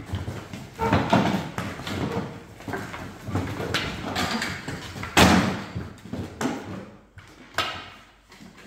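Wooden chairs scraping and knocking on a tiled floor as several people scramble to sit down in a game of musical chairs, with scattered thumps and shuffling; the loudest knock comes about five seconds in.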